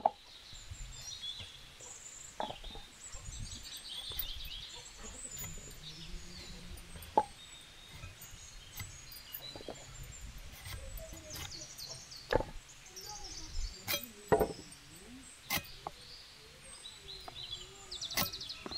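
Irregular sharp knocks and taps as vegetables are cut on an upright curved floor blade (aruvamanai) and the pieces drop into an aluminium plate. Birds chirp in the background.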